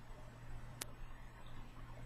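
Quiet room tone with a steady low hum, broken once by a single sharp click a little under a second in.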